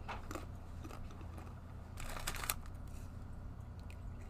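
Crunching of thin, hard garlic plantain chips being bitten and chewed, in a few short crackles with a longer burst about two seconds in, over a low steady hum.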